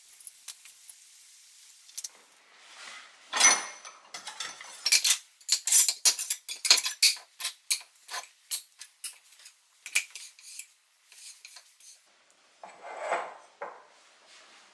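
Knives and kitchen scissors being slotted into a wooden knife block: a quick run of sharp metallic clinks and wooden knocks, then a duller knock near the end.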